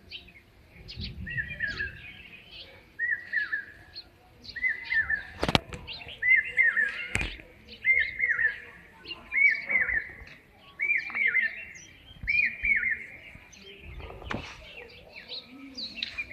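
A bird repeats a short call of quick downward-slurred notes about every one and a half seconds; the calls grow louder and then stop near the end, while other birds chirp faintly and higher-pitched. A few sharp clicks sound in between.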